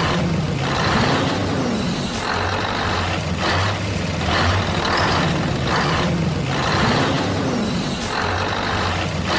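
Small motor of a miniature toy construction vehicle running and working, its pitch rising and falling twice, with a low hum that comes and goes and about ten short hissing, scraping bursts.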